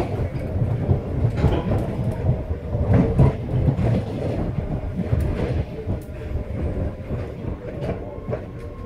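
MBTA Red Line subway car running on the rails, heard from inside the car: a steady low rumble with scattered clicks from the wheels on the track, growing quieter near the end.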